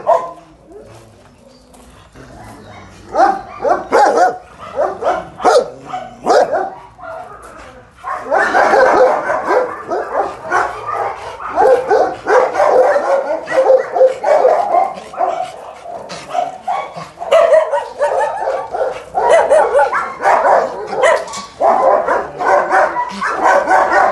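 Several shelter dogs barking in their kennels. A few separate barks come at first, then from about eight seconds in many dogs bark together without a break.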